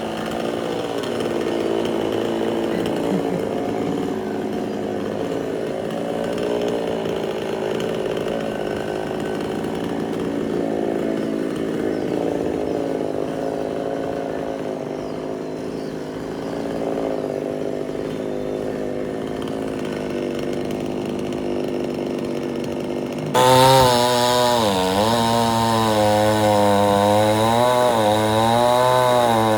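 Chainsaw engine running steadily for most of the time. About 23 seconds in it suddenly gets much louder, and its engine speed rises and falls repeatedly.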